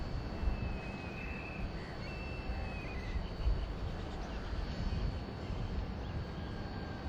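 Steady low outdoor rumble with a faint high steady tone, and two thin high whistles, one about a second in and one about two seconds in.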